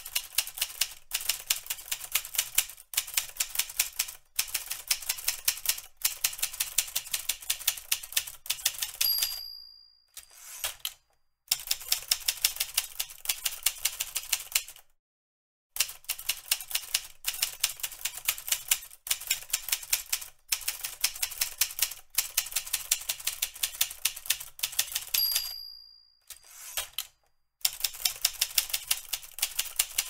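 Manual typewriter typing in fast runs of key strikes, broken by short pauses. The line-end bell dings twice, about 9 seconds in and again about 25 seconds in.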